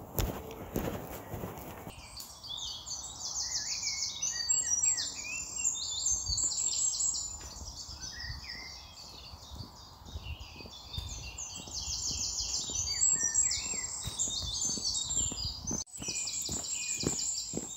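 Several songbirds singing over one another in spring woodland, with fast repeated trills and chirps overlapping. Boots crunch on an earth path at the start and again near the end.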